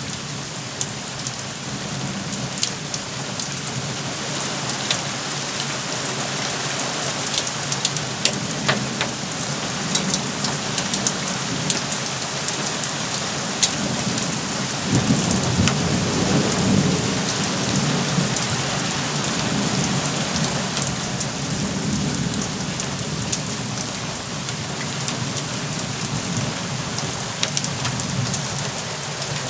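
Heavy rain pouring down and pattering on a corrugated porch roof, full of sharp drop ticks. A low thunder rumble swells about halfway through and lasts several seconds before fading.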